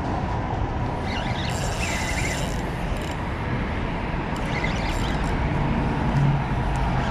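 Steady low rumble of traffic on the road bridge overhead, mixed with wind on the microphone. Twice a brighter hiss swells briefly, and a low hum comes in near the end.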